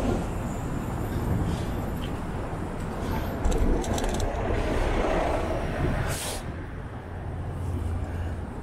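City street traffic heard from a moving bicycle: a steady mix of passing vehicles with a low rumble. A short, sharp hiss comes about six seconds in.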